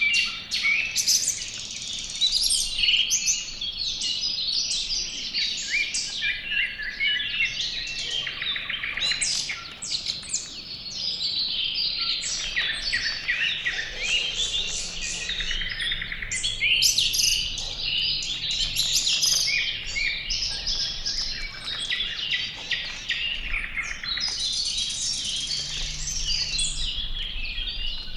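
Wild songbirds chirping and singing, many calls overlapping in a continuous dawn-chorus-like din of short high chirps and trills.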